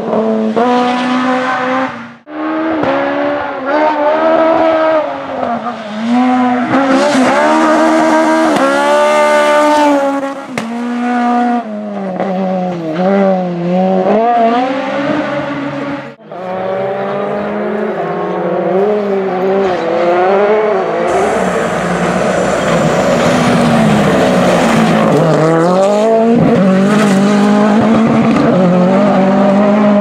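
Rally car engines revving hard across three short passes, their pitch repeatedly climbing and dropping with gear changes and lifts off the throttle. In the last pass a loud rush of tyre noise runs under the engine for several seconds.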